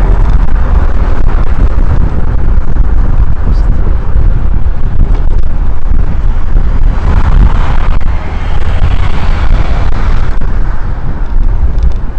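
Heavy wind rumble on a bicycle-mounted camera microphone while riding in traffic, with road-vehicle noise; a swell of traffic noise comes between about seven and ten seconds in.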